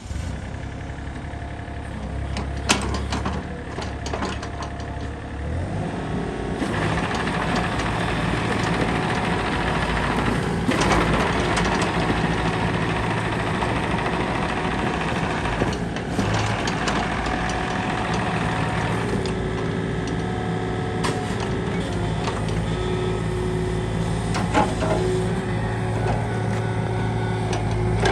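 Yanmar ViO33 mini excavator's diesel engine running steadily. It changes pitch and grows louder about six seconds in as the engine speed rises, with occasional sharp clicks and knocks.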